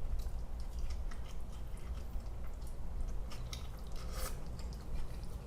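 A person chewing a mouthful of veggie pizza close to the microphone, with small wet clicks and crackles as it is chewed, and one louder crunch about four seconds in.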